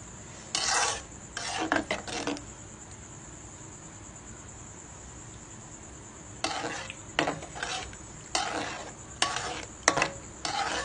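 A spoon stirring thick rice porridge in an aluminium pot, scraping the pot in short strokes. There are two spells of stirring with a pause of a few seconds between them.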